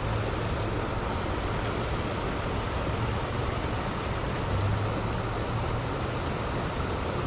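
Steady rush of river water flowing over rocks, an even hiss with a low rumble beneath it.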